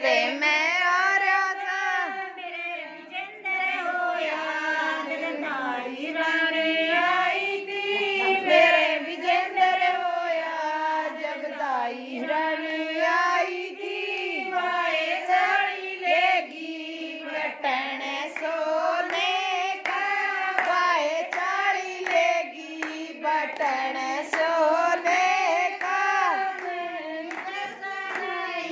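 Women singing a Haryanvi jachcha geet, a folk song for a new mother and baby, with hand clapping along.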